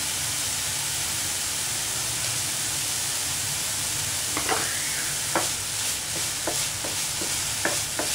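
Grated radish sizzling steadily in a non-stick frying pan. From about halfway, a wooden spatula stirs it, with short scrapes and taps against the pan.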